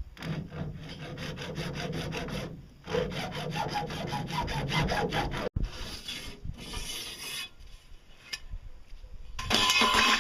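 Hand hacksaw cutting through a fiberglass-wrapped pipe in rapid back-and-forth strokes, in two runs with a short pause between, stopping abruptly about five and a half seconds in. Afterwards comes a scraping as a square metal bar is slid out of the cut pipe, and a brief louder scrape near the end.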